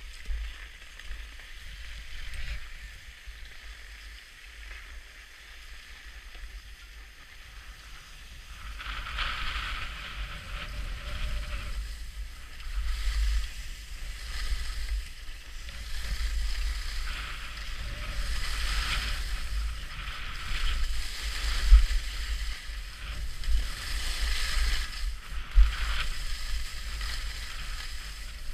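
Skis sliding and carving on packed groomed snow, a scraping hiss that swells and fades, over wind rumble on the microphone. It is quieter for the first several seconds and grows louder once the skier picks up speed, with two sharp knocks in the later part.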